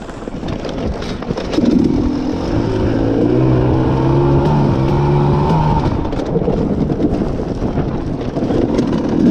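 KTM dirt bike engine running on a steep rocky trail. It revs up about two seconds in, then holds a fairly steady pitch before the revs waver again.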